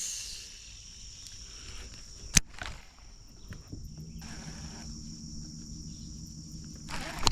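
Insects droning steadily on one high thin tone, with a single sharp click a little over two seconds in and a low hum joining about halfway through.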